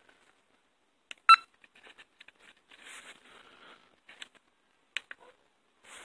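Power Probe 3S circuit tester giving one short beep about a second in as its menu buttons are pressed, with a few light clicks from the buttons and the handheld unit.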